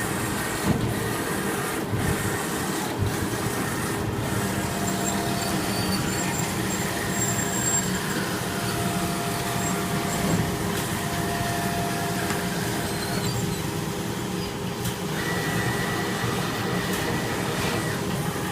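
CO2 laser fabric-cutting machine running steadily, with a constant machine hum and whining tones that change pitch and start and stop as the cutting head moves.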